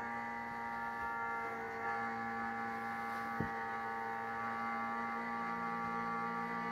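Steady electrical hum: a buzz of many fixed pitches that holds without change, with one sharp click about halfway through.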